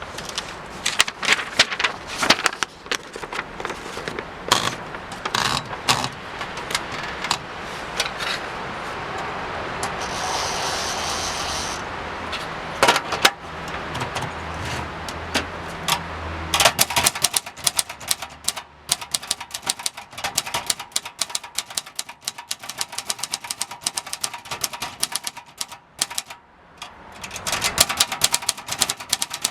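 1969 Brillant Junior manual typewriter being typed on: rapid clacking of the typebars striking, on a machine whose mechanism is worn out. Partway through, a steady rushing noise lasting several seconds mixes with sparser keystrokes, before a fast, even run of typing.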